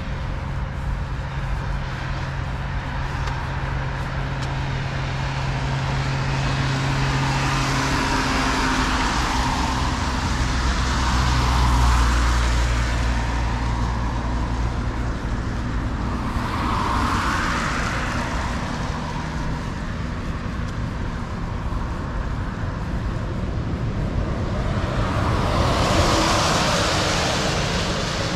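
Road traffic: cars passing one after another, their tyre and engine noise swelling and fading, loudest about twelve seconds in and again near the end, over a steady low engine hum.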